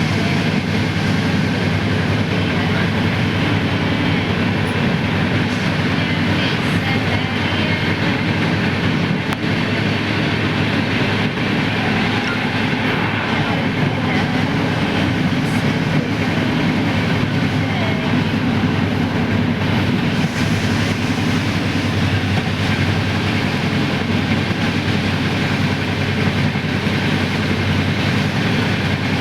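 Indian passenger train running, heard from inside the coach: a loud, steady noise of the carriage rolling on the rails with no letup.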